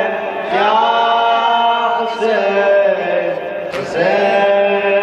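A young male radood chanting a Shia Muharram latmiyya lament, unaccompanied, into a microphone. He holds long, wavering melismatic notes, with a short break for breath about three and a half seconds in.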